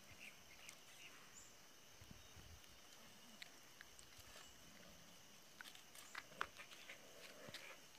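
Near silence in the open air, broken by scattered light clicks and snaps that cluster in the second half: a dog nosing about among dry sticks and dead leaves.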